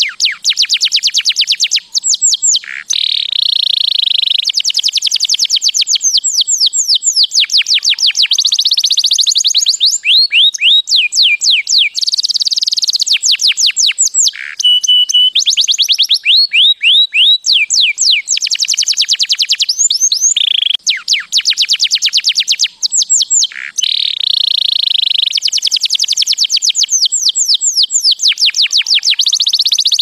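Male domestic canary singing a long song of fast, high trills, each phrase a rapid string of repeated notes, broken by short pauses, with one brief held whistle about halfway through.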